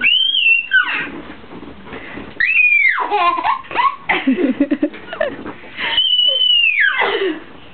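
A toddler's high-pitched screams, three of them, each sliding down in pitch at the end, with giggling and laughter in between.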